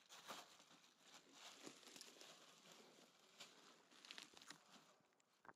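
Faint rustling and small crackles as a Finnish Spitz browses in low tundra shrubs, nibbling and tearing at the leaves.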